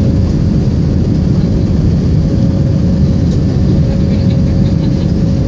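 Jet airliner cabin noise in flight, heard from a window seat of an Airbus A321-200: a loud, steady roar of the engines and rushing air, with a steady mid-pitched hum running through it.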